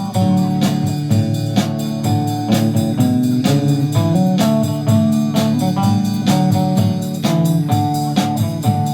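Instrumental break in a live country song: guitar playing a melody over a bass line and a steady beat, with no singing.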